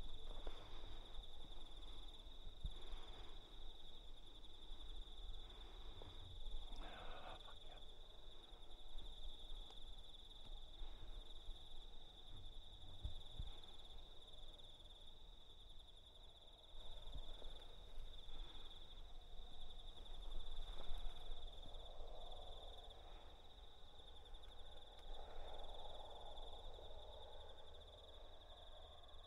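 Night insects trilling in one steady high pitch without a break, with faint rustles and a few soft knocks now and then.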